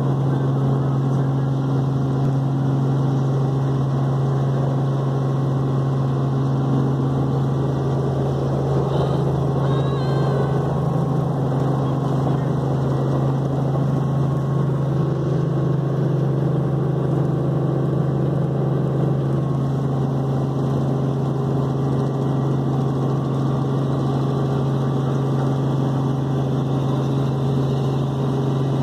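Helicopter engine and rotor running at takeoff power, heard from inside the cabin as a loud, steady drone with a strong low hum.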